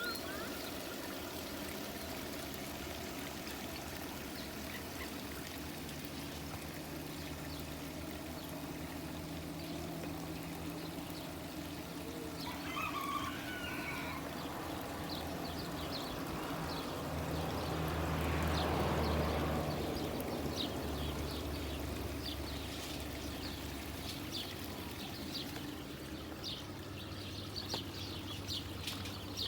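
Aviary fountain water splashing and trickling steadily, with bird calls here and there and a run of short high chirps near the end.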